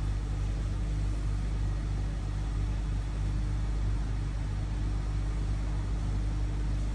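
Hybrid car's petrol engine running steadily at idle, a low even hum, just after it kicked on: the post-oil-change run for a leak check.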